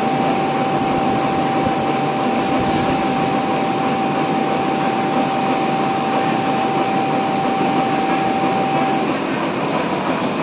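Computerized template sewing machine running and stitching a collar: a steady mechanical whirring with a constant high whine that stops about nine seconds in.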